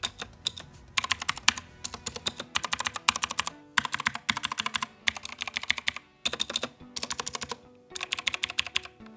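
Fast typing on a Cooler Master CK530 V2 mechanical keyboard with Gateron Blue clicky switches: quick runs of sharp clicks in bursts of about a second, broken by short pauses.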